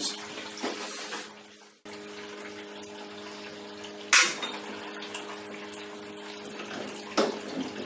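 Small brewing pump humming steadily while wort runs and splashes through the flexible sparge arm into the mash. Two sharp knocks sound about four and seven seconds in, as the fitting is worked with pliers.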